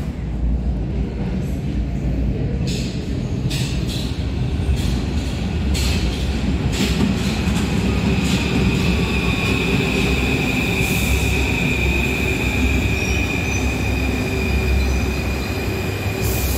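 Paris Métro MF 01 trains pulling into the station on steel wheels, with a steady low rumble. Several sharp clacks come in the first half, and from about halfway on a high, steady wheel squeal rings over the rumble.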